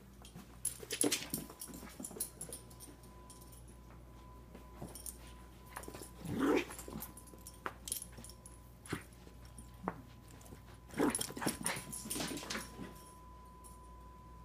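A Shih Tzu playing with a stuffed toy on carpet, with scuffling and clicking and a few short dog vocal sounds. The clearest comes about six and a half seconds in, and a busier stretch follows from about eleven to thirteen seconds.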